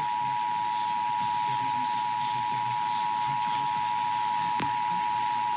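Emergency Alert System attention signal: two steady tones sounded together (853 and 960 Hz) in a continuous held chord, over a hiss, with one faint click near the end.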